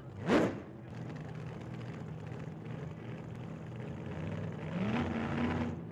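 A quick whoosh, then an engine running steadily and revving up briefly near the end.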